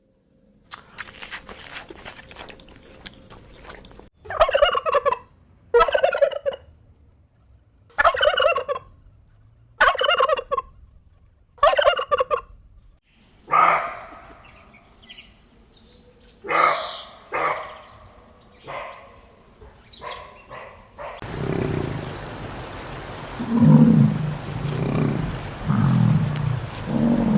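Farm poultry calling in repeated short bursts, about one every two seconds, then more irregular calls; about 21 seconds in the sound changes to lower-pitched animal calls over steady background noise.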